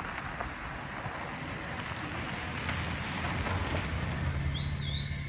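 A car driving along a gravel road, tyre noise on the gravel and a low engine hum, growing louder toward the end. A brief high warbling whistle-like tone sounds near the end.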